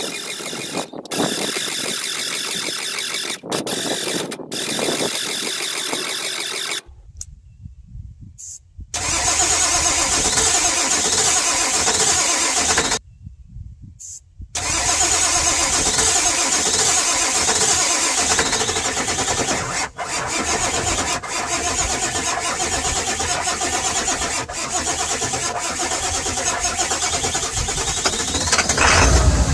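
1997 Ford F-350's 7.3 Powerstroke V8 turbo-diesel being cranked by the starter in long bursts, stopping briefly about seven and thirteen seconds in. It is trying to fire with air still in the oil and fuel systems after a new IPR valve was fitted.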